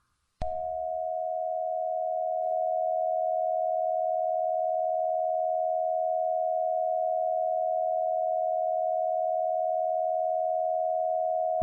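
Emergency alert attention tone: one steady, single-pitched electronic tone. It starts about half a second in and is held unchanged for about eleven seconds.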